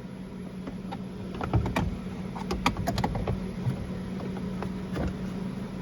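Plastic speaker pod being pushed and worked back into a Jeep Wrangler's dashboard: a run of sharp clicks and knocks, bunched in the first half and scattered after, over a steady low hum.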